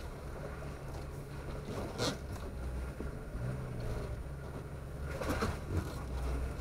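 A Jeep's engine running low and steady as it crawls over a wet, rocky trail, with a few short sharp noises from the crossing, one about two seconds in and several more around five seconds in.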